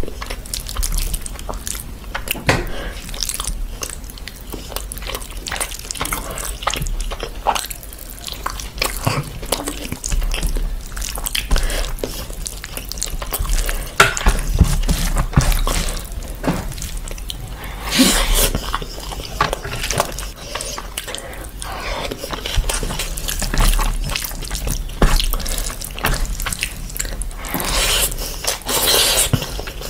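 Close-miked eating sounds: wet chewing and lip smacking, with fingers squishing through saucy biryani rice and tearing meat. There are louder wet bursts as handfuls go into the mouth, one near the end.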